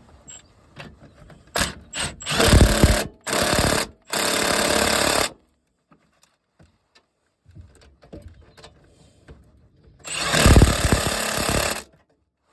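Cordless impact wrench hammering the rear wheel bearing hub bolts in, in short bursts: three or four bursts in the first five seconds, then one longer burst about ten seconds in.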